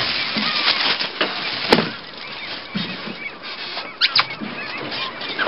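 A flock of gulls calling and screeching over the water, many short calls overlapping, with two loud calls about four seconds in. A single sharp knock sounds a little under two seconds in.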